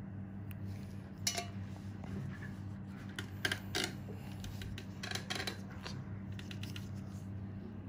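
Light clicks and clinks of small hard objects come in a few short clusters over a steady low hum.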